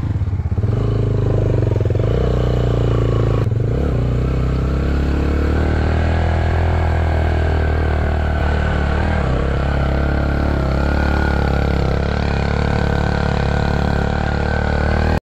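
Motorcycle engine running steadily while riding a dirt track, heard from on the bike, its pitch shifting a few times.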